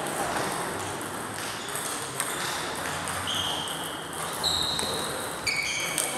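Plastic 40+ table tennis balls being struck and bouncing on the tables in a rally, giving a series of short, high ringing pings and clicks that come closer together in the second half, over a steady background of hall noise.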